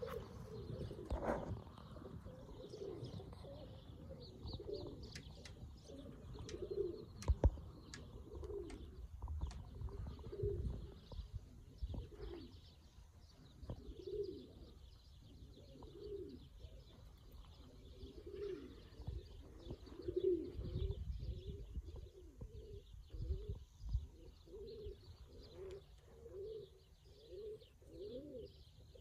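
Pigeons cooing over and over, with small birds chirping higher up and a low rumble underneath. There is a single sharp knock about seven seconds in.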